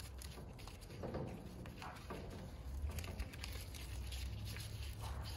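Faint rustling and peeling of old handlebar tape being unwound by hand from a road bike's drop bar, over a steady low rumble.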